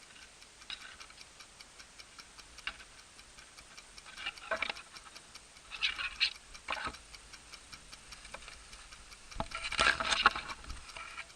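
Rapid, even mechanical ticking, about five ticks a second, with a few louder noisy bursts over it, the loudest about ten seconds in.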